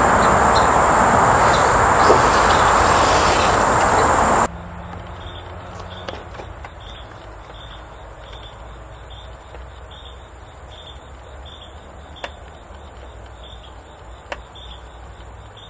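A loud, steady hiss for the first few seconds cuts off abruptly. After it, insects chirp in an even, repeating rhythm over a steady high whine, with a few light knocks.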